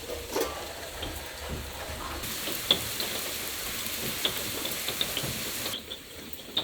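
Steady rain falling, with scattered drops ticking sharply; it turns quieter for about the last second.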